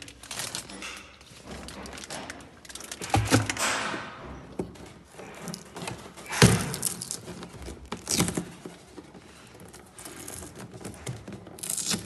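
Handling noise at a twin-tub washing machine: plastic sheeting crinkling and rustling, with several knocks of plastic parts against the machine's plastic body, the loudest a little past halfway.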